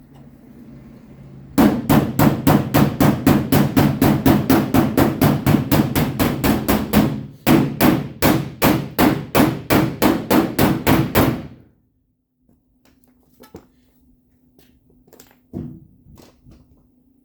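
Body hammer rapidly tapping the steel truck quarter panel, about five even, ringing metal strikes a second, working the dent level. The run breaks briefly about halfway, then stops, followed by a few faint single taps.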